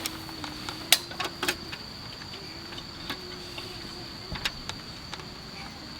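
Scattered sharp clicks and taps at uneven intervals, a few of them louder, over a steady high-pitched tone.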